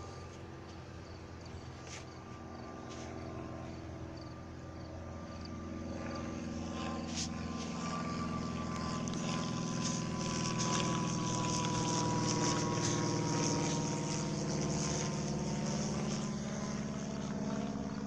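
A steady engine drone whose pitch falls slowly, growing louder to a peak past the middle and then easing off.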